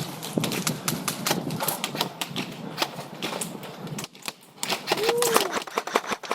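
Airsoft electric rifles firing in rapid bursts of sharp clicks, the BB shots snapping out in quick runs with short gaps between. A brief voice sounds about five seconds in.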